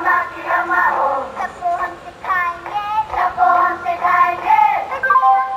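A high-pitched singing voice, child-like, with music. Near the end, steady chime-like notes begin, stepping down in pitch.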